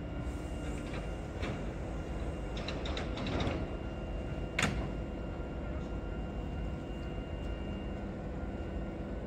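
Doors of a Hankyu 6000-series electric train sliding shut at a station stop, with a run of rattling clicks and then one sharp knock about four and a half seconds in. Under it is the steady hum of the standing train's onboard equipment.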